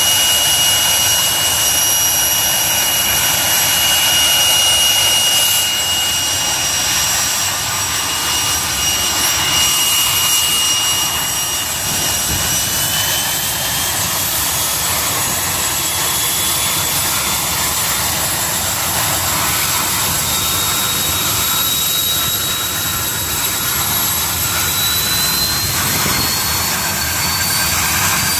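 Erickson S-64 Air-Crane helicopter's turbine engines running on the ground with the rotors turning: a loud, steady high whine over a roar. About twelve seconds in, the whine begins to climb steadily in pitch as the engines spool up.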